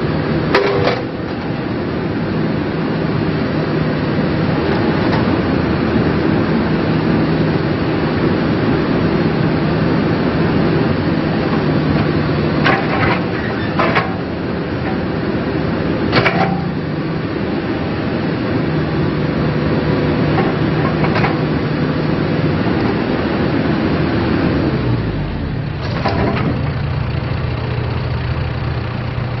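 John Deere 310K backhoe loader's diesel engine running steadily, with several short sharp knocks scattered through. Near the end the engine note dips and settles lower.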